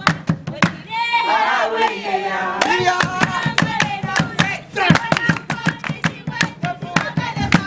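A group singing an Oshiwambo traditional dance song, accompanied by hand clapping in a quick, steady rhythm.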